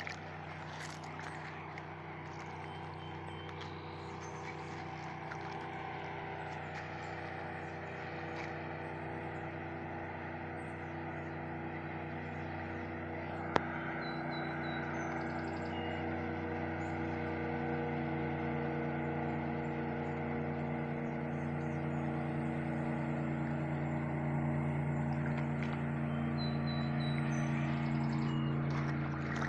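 A boat's engine droning at a steady pitch on the river, slowly growing louder as it comes closer. A single sharp click about halfway through.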